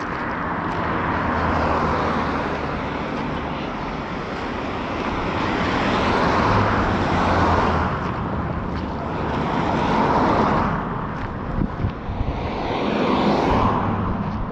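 Road traffic: several vehicles pass one after another, each a swelling and fading rush of tyre and engine noise, four passes in all.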